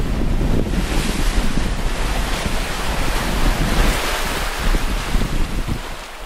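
Wind buffeting the microphone over the rush of waves along a sailing yacht's hull, surging and easing as the boat moves through rough, whitecapped sea.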